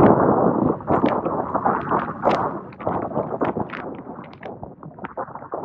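Strong wind buffeting the camera microphone in uneven gusts, with crackling pops, easing somewhat in the second half.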